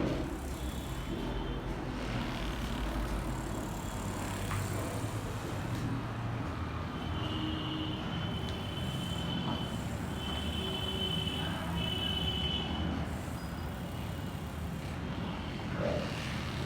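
Steady low background rumble of road traffic, with faint thin high tones in the middle stretch.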